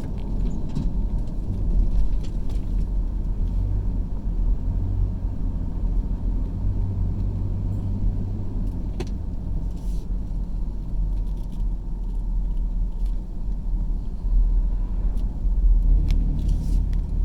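A car being driven, heard from inside: a steady low rumble of engine and tyres on the road, with a few faint clicks and rattles.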